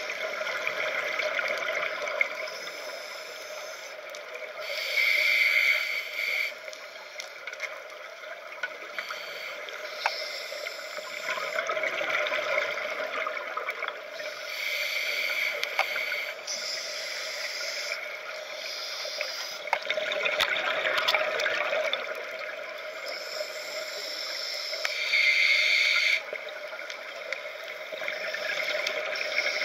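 Scuba diver breathing through a Scubapro regulator underwater. Each exhale is a loud rush of bubbles, coming about every ten seconds, and between them are softer hissing inhales over a steady underwater hiss.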